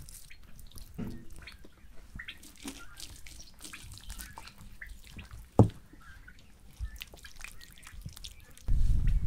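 Wet squelching and smacking of hands rubbing marinade paste into a raw whole lamb carcass, with one sharp slap about halfway through. Near the end a louder low rumble suddenly takes over.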